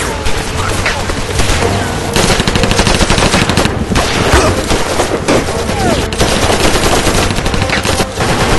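Sustained battle gunfire: rapid machine-gun bursts mixed with single rifle shots, growing denser about two seconds in and continuing without a break.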